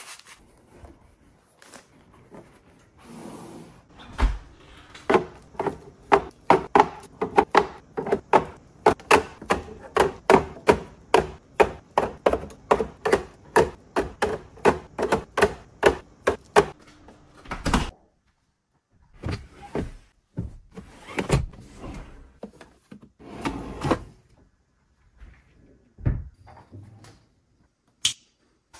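Eggs being set one by one into a clear plastic egg tray in a refrigerator door: a long run of light clacks, about three a second, lasting over ten seconds. Afterwards, a few scattered knocks and thuds.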